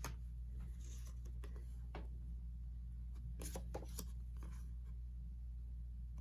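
Postcards and card packaging being handled: scattered light rustles and taps of card, a few together about three and a half seconds in, over a steady low hum.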